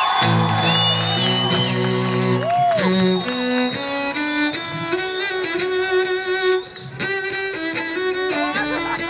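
Cello bowed in a live performance, playing a melody of held notes that starts low and moves higher, with a brief gap about two-thirds of the way through.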